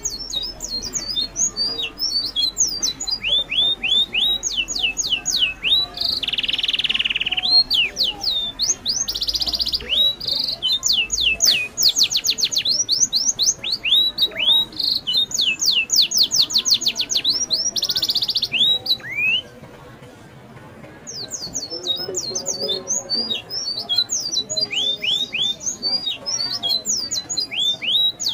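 Birds calling: fast runs of high, downward-sweeping chirps, repeated over and over, with a couple of short hissing buzzes early on and a brief lull about two-thirds of the way through.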